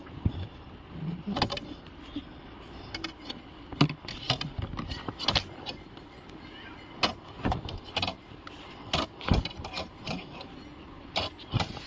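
A thin wire worked in through the door gap of a locked car, making irregular clicks, taps and short scrapes against the inside door panel and lock as it is fished toward the lock to open it.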